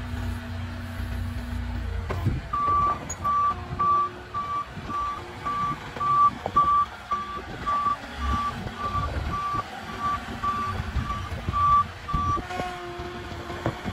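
Moffett truck-mounted forklift's reversing alarm beeping about twice a second over its running engine. The beeping starts a couple of seconds in and stops shortly before the end.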